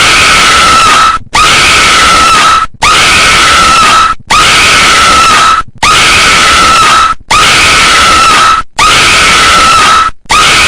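Possessed-girl horror scream sound effect: a loud, harsh shriek with a piercing held pitch, the same scream looped eight times, restarting about every second and a half with short silent gaps.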